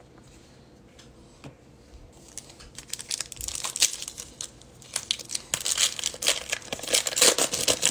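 Foil wrapper of a 2022 Bowman hobby pack of baseball cards being torn open and crinkled by hand. A couple of seconds of quiet, then crinkling, tearing crackles that grow busier toward the end.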